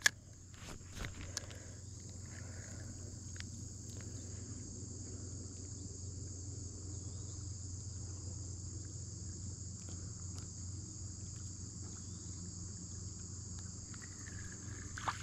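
Steady high-pitched chorus of insects over a low steady hum. A sharp click at the very start and a few light ticks in the first second or two come from handling a spinning reel.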